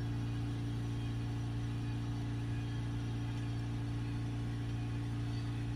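Ford Transit diesel engine held steady at about 3000 rpm, its rev limit in restricted performance mode, heard from inside the cab, pushing DPF cleaning fluid through a blocked particulate filter. The engine note stays even, with no change in pitch.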